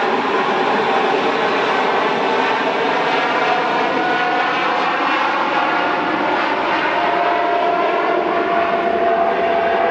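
Boeing 747-8 freighter's four General Electric GEnx-2B turbofans running at takeoff thrust during the takeoff roll: a loud, steady jet noise with a whining tone that slowly falls in pitch.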